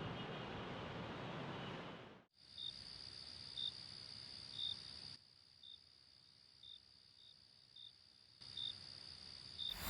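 Faint hiss that cuts off about two seconds in, then crickets chirping: short high chirps about once a second over a steady high trill.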